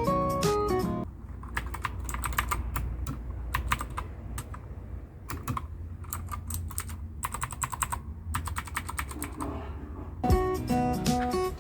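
Mechanical keys being typed on a Husky Gaming Blizzard 60% keyboard: quick runs of sharp clicks with short pauses between them. Acoustic guitar music plays briefly at the start and comes back near the end.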